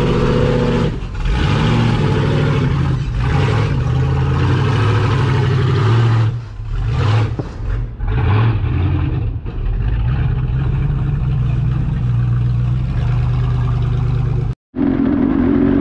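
Rock crawler's engine running and revving up and down as the machine crawls over rocks. The sound cuts out sharply for a moment near the end.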